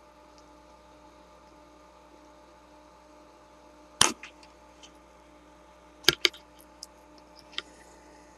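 A few short sharp clicks and snaps, one about halfway through and four more in quick succession later, from the insulation of a headphone wire being stripped with the teeth, over a faint steady electrical hum.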